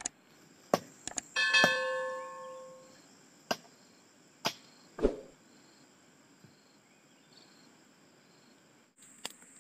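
A few sharp knocks. One, about a second and a half in, is a metallic clang that rings on and fades over about a second and a half. A faint steady high insect drone runs underneath.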